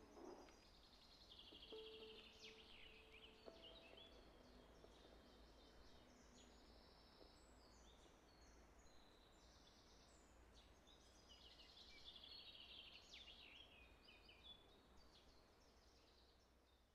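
Faint birdsong: small birds chirping and giving quick trills over a low steady hum, fading out at the end.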